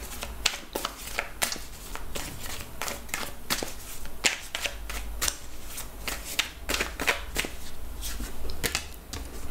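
A deck of tarot cards being shuffled in the hands, a run of quick, irregular card flicks and snaps, a few each second.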